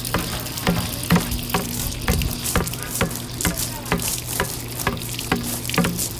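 An improvised rhythm built from everyday object sounds: sharp taps about twice a second over a steady crackling hiss like running water, with a low hum beneath.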